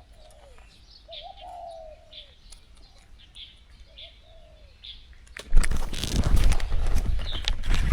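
Doves cooing in repeated arching calls, with small birds chirping higher up. About five and a half seconds in, a sudden loud, rough noise cuts in and drowns them out.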